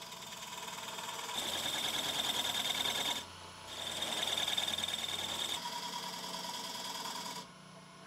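Sycamore spinning on a wood lathe with the turner's work held against it: a steady rubbing hiss that starts about a second and a half in, breaks off briefly just after three seconds, resumes, turns lighter with a steady high ring, and stops about seven and a half seconds in.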